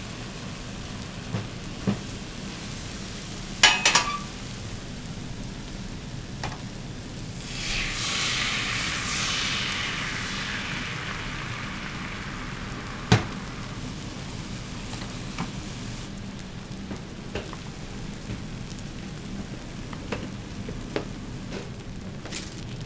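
Food sizzling on a hot griddle, a burst of hissing that swells about a third of the way in and fades over several seconds, with scattered clicks and knocks of cooking utensils.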